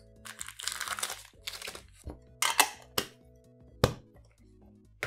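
Foil booster packs crinkling as they are pulled out of a small metal Pokémon tin, followed by about four sharp clicks and knocks as the tin parts and contents are handled, over soft background music.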